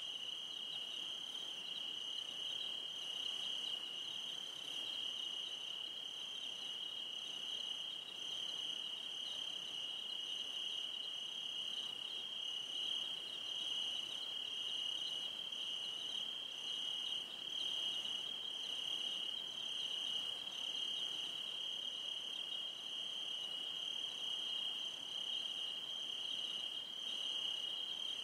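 Crickets trilling: one steady, unbroken high trill, with a fainter, higher chirp repeating a little faster than once a second above it.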